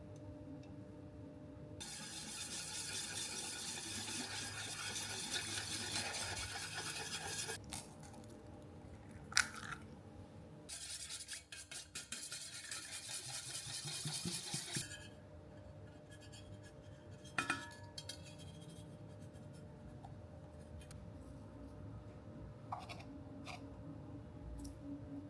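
Small electric mixer running in two bursts, one of about six seconds and one of about four, with sharp clinks against the bowl in between and afterwards. Typical of beating cookie dough.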